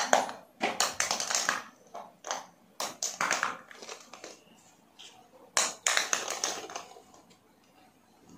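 Small hollow plastic balls dropping and bouncing on a hard floor: irregular clacks and taps, some in quick clusters, with quiet gaps between.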